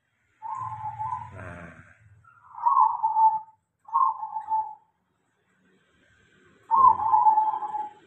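Caged zebra doves (perkutut) cooing in four short phrases with pauses between them, with a low rumble under the first and last phrase.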